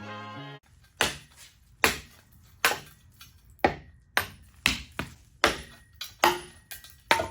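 A hammer striking steel on an axle, about a dozen hard blows at uneven spacing, several with a short metallic ring, typical of knocking out old bushings or brackets. Background music cuts off just before the blows begin.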